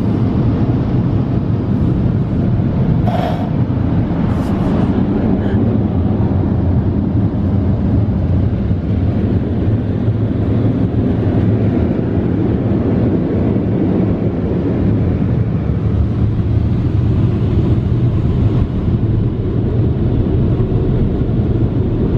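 Touchless car wash dryer blowers blasting air over the minivan, heard from inside the cabin as a loud, steady, deep rush. This is the drying stage at the end of the wash.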